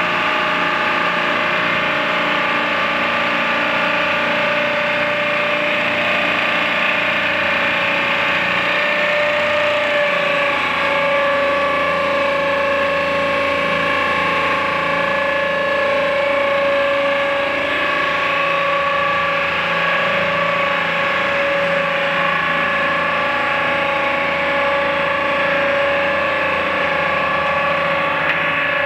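The engine of a 1985 International S1900 dump truck running steadily while its hydraulic hoist raises the dump bed, with a steady whine over the engine sound.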